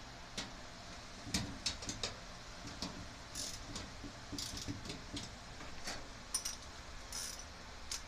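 Irregular metallic clicks, clinks and short scrapes as garage door spring hardware is handled and worked on by hand.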